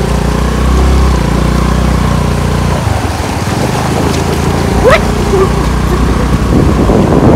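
Scooter engine running under way, its hum dropping away about three seconds in and picking up again near five seconds, with a short rising squeal about five seconds in.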